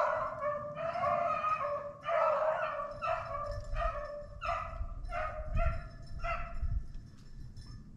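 Rabbit hounds baying on the rabbit's scent trail, a string of separate pitched calls about one or two a second that die away about seven seconds in: the dogs have picked up the scent and are running it.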